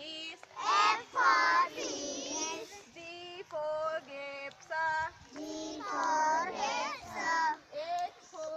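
Young children chanting in sing-song unison, with a woman's voice leading, reciting letters after her in call-and-response.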